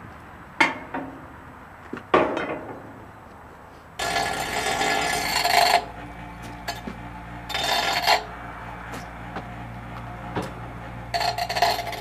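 Two sharp knocks, then a small bench grinder running with a steady hum. A half-inch round steel rod is ground against its wheel three times, about four, seven and a half and eleven seconds in, rounding off the rod's cut ends.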